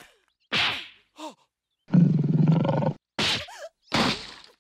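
Cartoon fight sound effects: a sharp slap, then a loud rough growl lasting about a second, then another slap and a thump with dust as a body hits the ground near the end.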